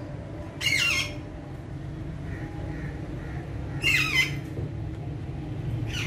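A female rose-ringed (Indian ringneck) parakeet gives two short, harsh squawks about three seconds apart, with a fainter call near the end, over a steady low background hum.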